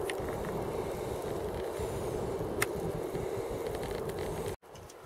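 Newspaper burning with open flames in a sheet-metal grill, a steady rushing noise mixed with wind on the microphone and a couple of faint crackles. It cuts off suddenly near the end, leaving a quieter hush.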